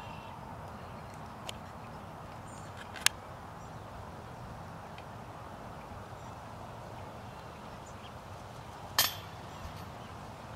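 Steady outdoor background noise broken by a small click, a sharp loud clack about three seconds in, and a louder metallic clink with a short ring about nine seconds in.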